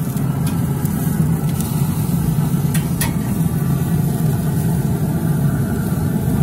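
Pit Boss pellet grill running on high, a steady low rumble of its fire and fan. A few light metal clicks come in the first half as tongs knock against the cooking grate while steaks are flipped.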